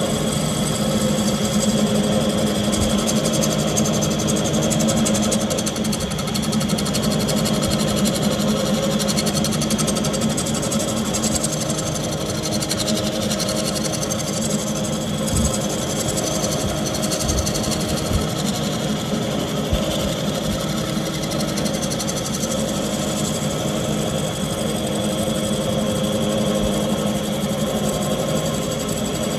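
Wood lathe running steadily while a bowl gouge cuts the bottom of a spinning Goncalo Alves bowl, the motor's hum under the continuous noise of the cut.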